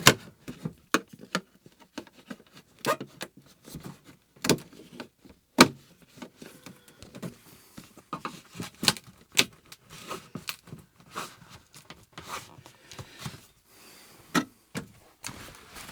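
Irregular clicks, knocks and rustling as a leather truck sleeper curtain and its fittings are handled and worked loose from behind a cabinet, with a couple of sharper knocks near the middle.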